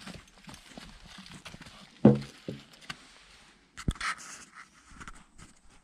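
Horse sounds: a short, low nicker about two seconds in, then a knock and a breathy blow or snort near four seconds.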